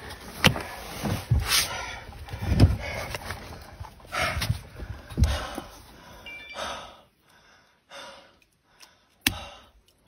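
Scattered dull thumps and knocks of a person shifting and lying down on a wooden deck beside a large fish, the loudest about two and a half seconds in. One sharp knock comes near the end.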